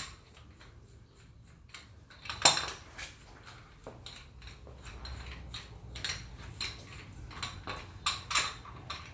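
Metal tools and parts clinking and knocking as they are handled on a workbench, with one louder clank about two and a half seconds in and a run of lighter knocks near the end.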